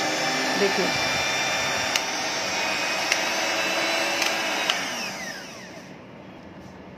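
Kent 16050 150 W electric hand mixer running with its steel beaters spinning freely in the air: a steady motor whine with a few sharp ticks. About five seconds in it is switched off and winds down, its pitch falling away.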